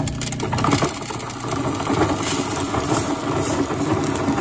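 Switched-on grain grinder for corn and wheat feed, its motor running steadily with an even hum.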